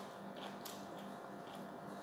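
Quiet eating sounds from fried fish eaten by hand: a few small, sharp, scattered clicks and crackles over a steady low hum.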